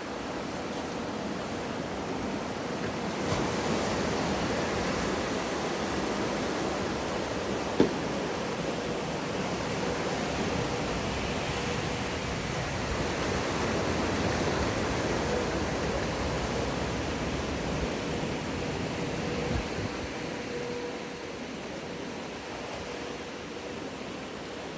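Rushing water of a wave-pool wave, swelling about three seconds in and easing off near the end, over a faint steady hum. There is one sharp click about eight seconds in.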